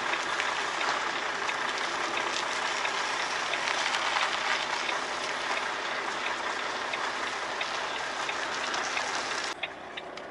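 Outside sound of a truck reversing with its trailer, heard through the open cab window: a steady hiss full of small crackles. It cuts off abruptly about nine and a half seconds in, giving way to quieter cab sound with sharp ticks.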